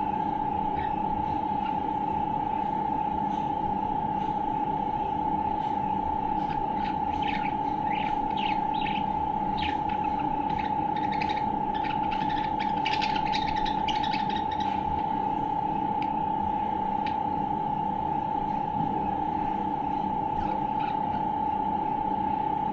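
Pet budgerigar chirping and twittering in short bursts, busiest in the middle stretch, over a loud steady high-pitched hum.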